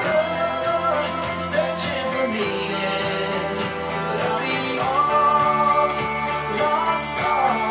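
A song playing: a singing voice holding and sliding between notes over instrumental backing.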